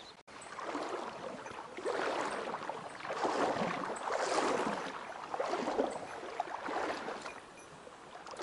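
Rushing stream water, a rough hiss that swells and fades every second or so.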